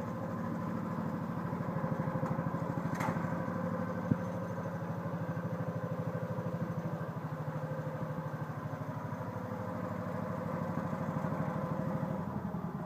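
The engine of a homemade swing blade sawmill running steadily with an even beat, with one sharp click about four seconds in.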